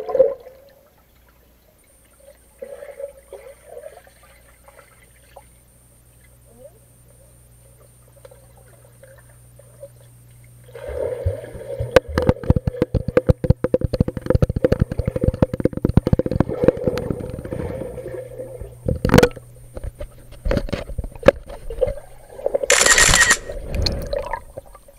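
Muffled sound picked up by a waterproof action camera underwater in a swimming pool: a faint low hum at first, then from about eleven seconds in a long run of rapid knocks and scraping as the camera is handled, and a short loud splash-like burst near the end.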